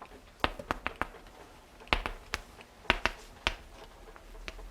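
A series of about ten sharp, irregular taps and clicks, spaced unevenly over several seconds.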